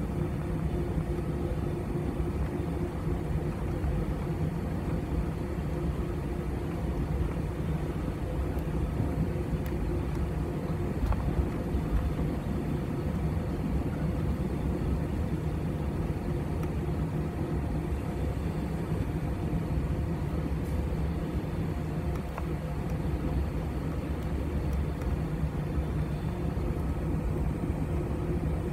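Cabin noise of an Airbus A320 taxiing, heard from a window seat over the wing: the jet engines run at taxi power as a steady low rumble with a few steady hum tones and no change in pitch.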